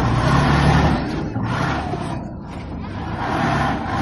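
Heavy machinery engines running, with a low rumble that is strongest in the first second, eases through the middle and builds again near the end.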